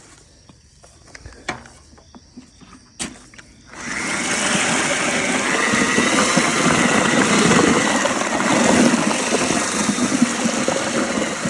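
A few light knocks, then about four seconds in a drill starts and runs steadily, spinning a paddle mixer through wet cement in a plastic bucket.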